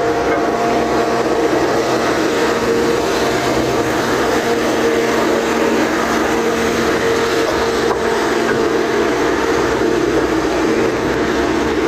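A steady machine hum at a constant pitch, running without a break, over a wash of noise.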